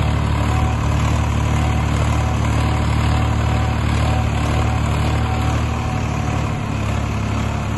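Swaraj 963 FE tractor's diesel engine running steadily while it pulls a reversible plough through the soil.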